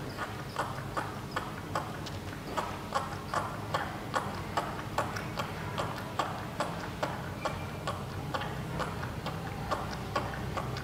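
A baby macaque sucking on the nipple of a milk bottle, making a steady rhythm of wet clicking sucks, about two to three a second.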